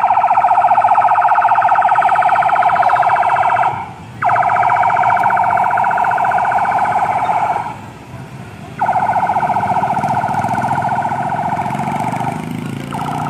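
Electronic siren on an escort convoy sounding in three long blasts of a steady, rapidly pulsing tone with short gaps, then a shorter blast near the end, over the low rumble of passing vehicle engines.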